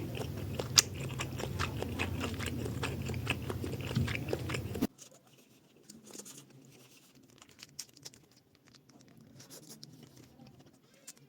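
Close-miked eating: chewing and biting food, with many small wet clicks over a steady low hum. About five seconds in, the hum stops abruptly and the chewing goes on much quieter, with scattered soft clicks.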